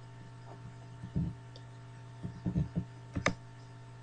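Steady low electrical hum with a few soft low thumps, and a sharp computer-mouse click about three seconds in.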